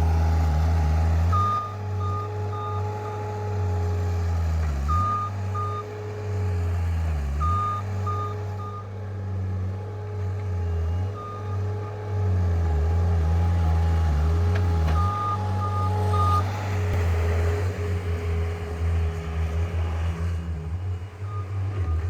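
John Deere skid steer's diesel engine running under changing load as it works, its pitch dipping and recovering several times. Its backup alarm beeps in short bursts of a few beeps every few seconds while the machine reverses.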